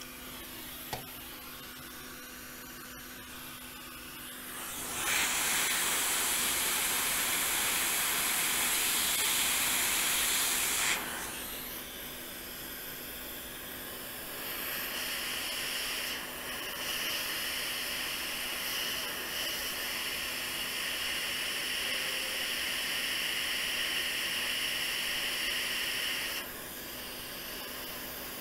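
Quick 861DW hot air rework station blowing on a QFN chip to reflow its solder: a steady hiss that swells loud for about six seconds, then settles into a softer, higher hiss that drops away near the end.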